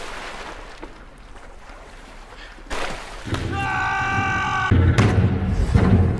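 Water splashing and churning, then a sharp hit, then a man's long high yell held for about a second and a half. Heavy low rumbling and thuds follow, the loudest part.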